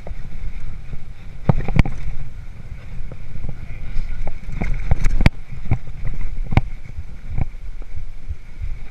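A 26-inch hardtail mountain bike rolling over a rough dirt trail, heard with wind rumble on the microphone. Sharp knocks and rattles from the bike come at irregular moments, about eight in all.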